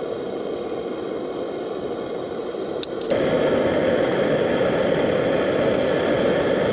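Portable gas camp stove burner running with a steady hiss. Just before three seconds in there is a click, and the burner then runs several dB louder, as if turned up.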